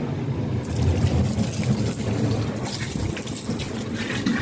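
Water from a hose pouring steadily into a drum that is not yet full.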